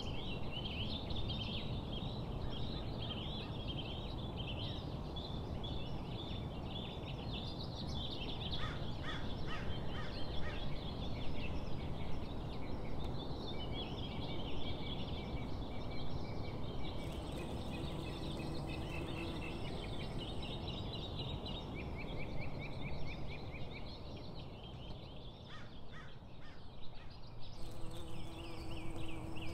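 Small songbirds chirping and singing in many quick, overlapping trills, over a steady low outdoor background rumble.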